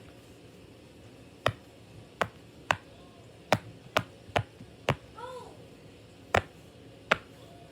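Silicone pop-it fidget toy having its bubbles pressed through one at a time: about nine sharp pops at uneven intervals.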